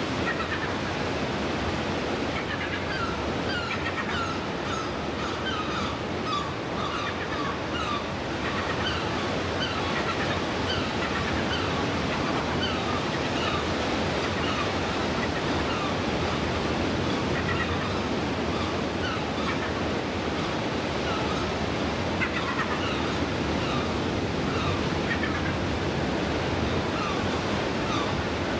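Surf washing steadily on a rocky shore, with many short, high, repeated calls of seabirds from the cliff colony overhead.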